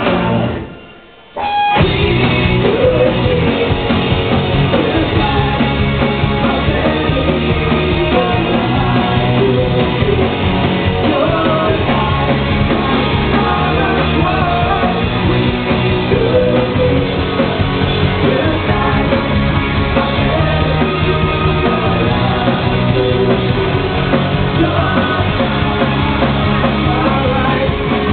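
Rock band playing live, with electric guitars, keyboard and a lead vocal. The band stops briefly about a second in, then comes back in at full volume.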